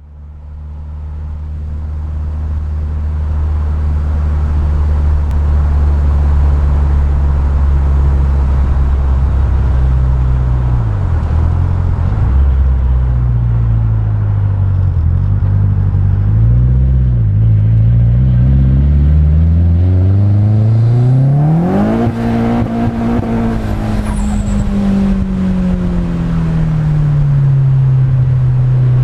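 Nissan 200SX S14's SR20DET turbocharged 2.0-litre inline-four running steadily, its pitch wavering up and down after about ten seconds. About twenty seconds in it revs up sharply under acceleration, then the pitch falls slowly and starts climbing again near the end.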